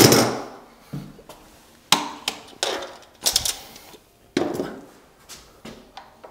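Metal clamps being loosened and taken off a wooden door frame: a string of sharp knocks and clacks at irregular intervals, the loudest at the very start and about four and a half seconds in.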